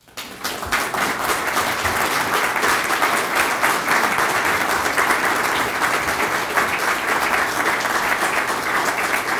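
Audience applause: many people clapping, breaking out just after the start and holding steady.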